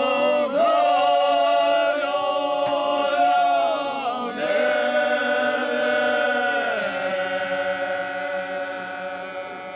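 A group of men singing a traditional bećarac folk song a cappella in harmony, holding long notes. The last chord is held and fades away near the end.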